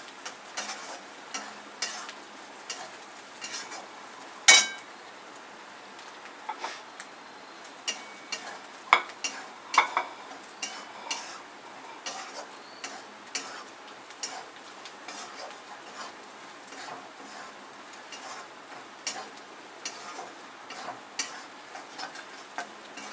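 Spatula scraping and knocking against a metal kadhai while an onion masala is stirred, over a steady low sizzle of frying in oil. Irregular clicks and scrapes run throughout, with one sharp clack about four and a half seconds in.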